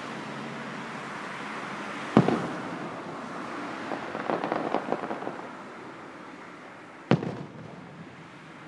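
Aerial firework shells bursting: a sharp boom about two seconds in, a spell of rapid crackling a couple of seconds later, and another sharp boom near the end.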